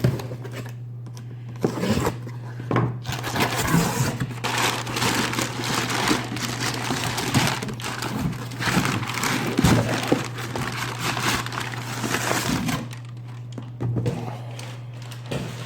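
A cardboard shipping box being opened by hand: packaging crinkling and tearing, with scattered knocks and cracks, busiest from about two seconds in until near the end.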